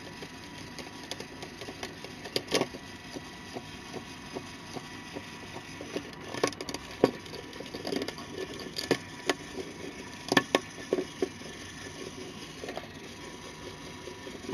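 Plastic LEGO Technic pieces clicking and knocking as they are pressed together by hand: irregular sharp clicks, a few louder snaps near the middle.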